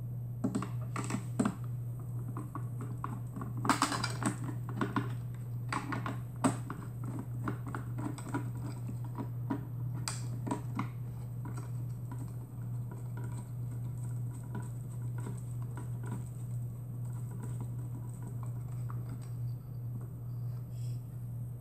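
Phillips screwdriver driving the mounting screws of a printer module into a plastic patient-monitor casing: scattered small clicks, ticks and scrapes of the tool, screws and housing, busiest in the first seven seconds and again around ten seconds in, over a steady low hum.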